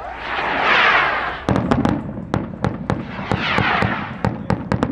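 Rocket headers going off overhead: hummers spinning with whooshing swells that rise and fall, then from about a second and a half in a rapid, irregular string of sharp report bangs.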